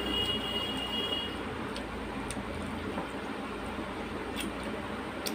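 Fingers mashing and mixing rice with dal on a metal plate: soft wet squishing over a steady hiss, with a few sharp clicks against the plate.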